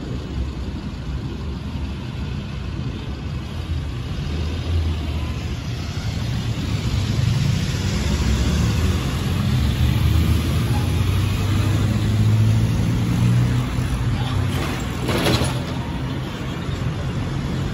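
Low engine rumble that swells over several seconds to a peak and then eases off, with a brief louder rush near the end.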